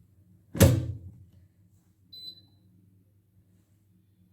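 An air fryer's basket drawer is pushed shut with a single sharp thunk near the start. About two seconds in, the air fryer's control panel gives one short high beep as it is set.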